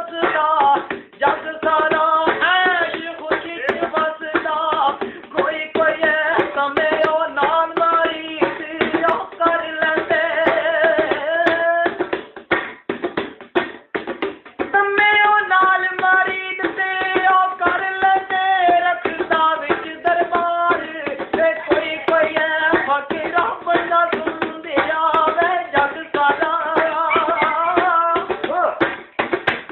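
Punjabi folk music: a melody of long held notes over a fast, steady percussion beat.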